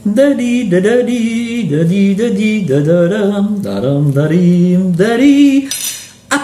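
A man humming a wordless tune, one melody line stepping up and down, that fades out shortly before the end.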